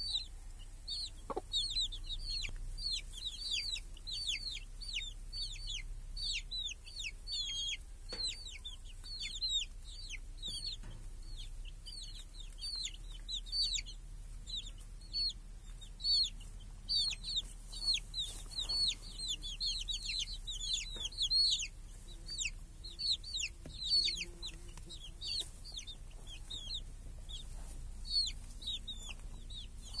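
Domestic chicks peeping: a constant stream of short, high, down-slurred peeps from several chicks at once, several a second.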